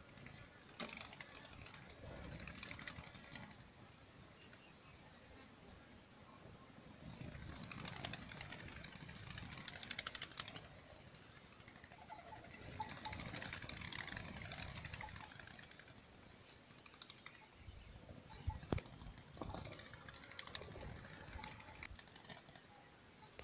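Eared doves' wings flapping as birds fly in and around, in two swells through the middle, over a steady high-pitched hum. One sharp click comes about three-quarters of the way in.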